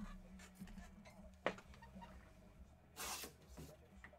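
Quiet room noise with a low steady hum, a single sharp click about a second and a half in, and a short rustle about three seconds in.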